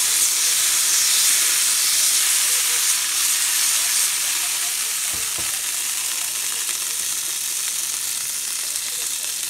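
Margarine sizzling as it melts in hot oil in a frying pan while a spatula pushes it around: a loud, steady high hiss that eases slightly after about four seconds.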